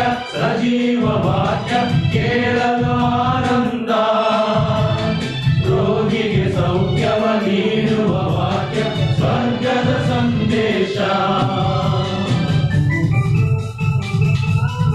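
A men's choir singing a hymn together, with organ accompaniment. About two-thirds of the way through the voices drop away and the organ plays on alone.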